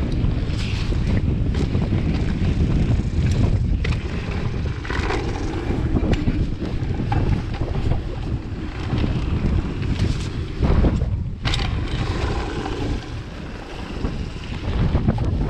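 Wind buffeting the microphone and the rumble of a mountain bike rolling fast down a dirt trail, with scattered clicks and rattles. The noise eases briefly near the end.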